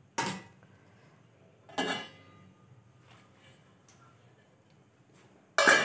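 Metal cookware clinks: two lighter clinks in the first two seconds, the second one ringing briefly, then a louder clank near the end as a stainless steel lid is set on the pan.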